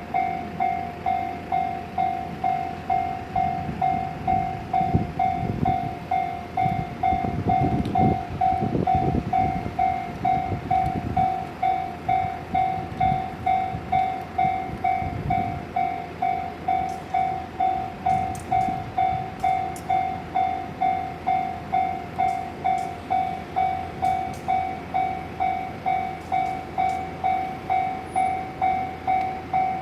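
Japanese level-crossing warning bell ringing steadily, about 1.7 dings a second, while a three-car JR West KuMoYa 145 electric train rumbles over the crossing. The rumble is loudest about eight seconds in and fades away by about sixteen seconds, with the bell going on unchanged.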